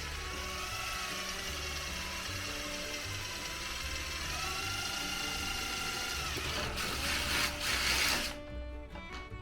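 A tool's mechanism ratcheting and rattling, likely while drilling a hole in the plastic part. Background music with changing steady notes plays under it. The noise grows loudest just before eight seconds in, then cuts off suddenly.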